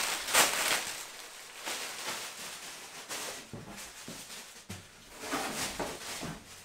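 Plastic air-cushion packing rustling and crinkling as it is handled and pushed aside, loudest in the first half-second.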